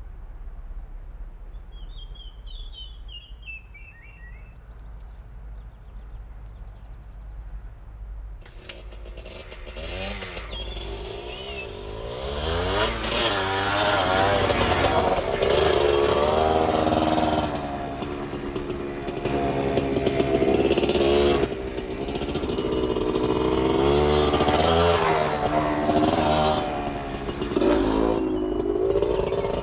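A bird trills briefly over a low hum, then about eight seconds in a motorcycle engine starts up and grows loud, revving with its pitch rising and falling again and again.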